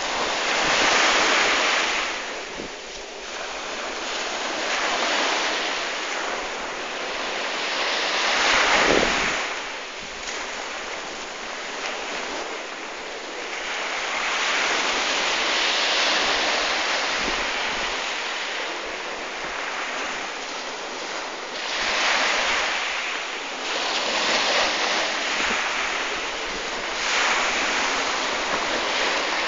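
Waves washing in: a steady rushing noise that swells and fades every several seconds, with a gust of wind on the microphone about nine seconds in.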